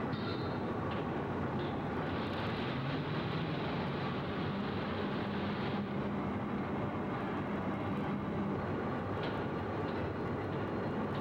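Steady mechanical din of heavy shop machinery on an old film soundtrack: an even rumbling noise, with a low hum that comes in about two seconds in and drops out near nine seconds.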